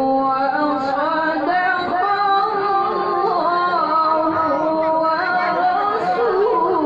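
A qari chanting the Quran in melodic tilawah style, drawing out long held notes that step and waver between pitches in one unbroken phrase.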